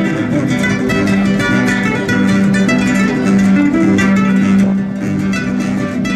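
Several acoustic guitars strummed and plucked together, playing a Peruvian folk song.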